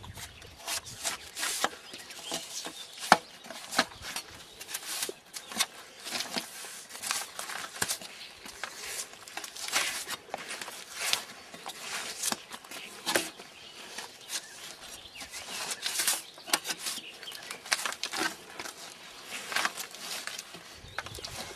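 Drawknife stripping bark from a round log: repeated short rasping scrapes as the blade is pulled along the wood and the bark peels away, roughly one stroke a second, with a sharper crack about three seconds in.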